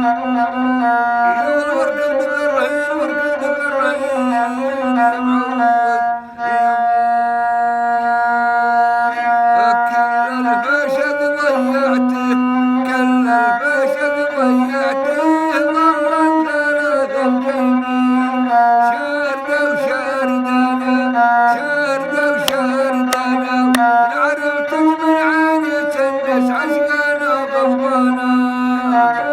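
Rababa, the Bedouin single-string bowed fiddle, playing an instrumental melody that moves in small steps around one low note, with a brief break about six seconds in.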